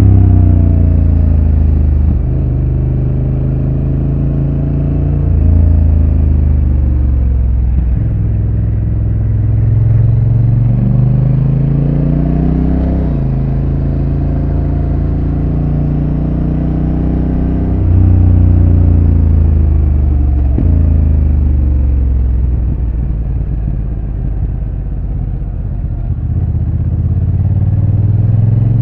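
Honda NT1100's parallel-twin engine through its stock exhaust, heard on board while riding. The engine note climbs under throttle and drops back several times, with sudden falls in pitch around a third, half and two-thirds of the way through.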